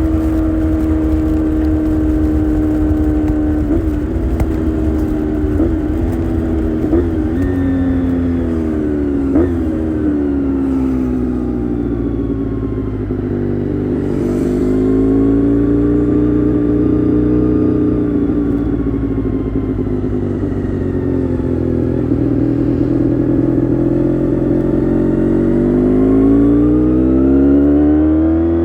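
Honda VFR400R's V4 engine pulling under way, its note holding steady and then jumping in pitch several times in quick succession, like gear changes. It then falls slowly, levels off and climbs again near the end. Heard through a phone carried in a backpack.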